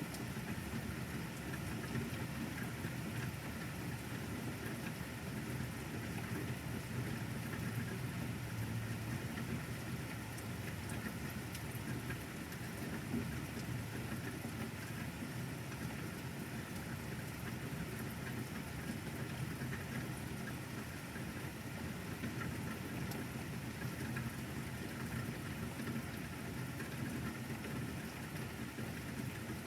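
Steady rain falling, an even hiss with a low steady rumble underneath.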